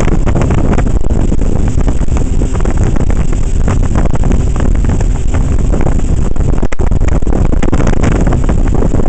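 Wind buffeting the microphone aboard a moving motorboat, mixed with the boat's engine and the rush of its churning wake, loud and steady. The sound drops out for an instant about two-thirds of the way through.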